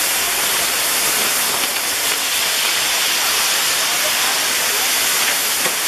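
Maltese ground fireworks (nar tal-art) burning: the fountain jets of a pyrotechnic wheel giving a loud, steady hiss.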